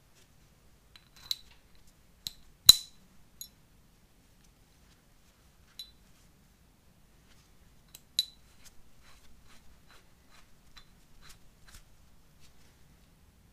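Metallic clicks of a spring hitch-pin clip being worked through the cross-drilled hole in a threaded grade 8 bolt pin and knocking against the bolt. A few sharp clicks come in the first few seconds, the loudest near three seconds in, then lighter ticks follow near the end.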